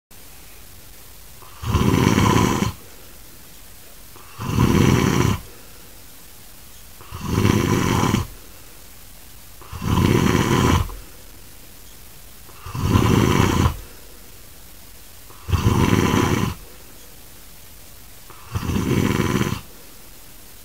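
A person snoring very loudly, grunting snores that come seven times at an even pace, each about a second long and about three seconds apart.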